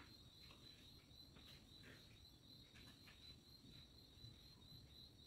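Near silence: a faint, steady high chirring of crickets, with a few soft clicks and scrapes from a knife cutting food on a ceramic plate.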